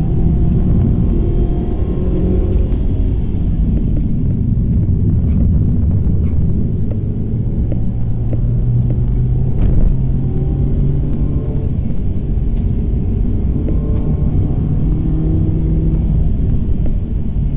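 Proton Inspira's engine and tyre noise heard inside the cabin at about 50–70 km/h: a steady low engine hum under load. The throttle eases off near the end.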